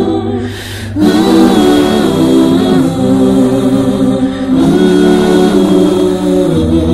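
Worship music: a group of voices singing held chords over a low bass line, the chords changing every second or two, with a brief dip in level about a second in.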